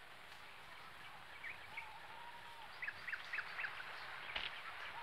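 Faint outdoor ambience with birds calling: quick chirps and a couple of longer whistled notes. There is a single click about four seconds in.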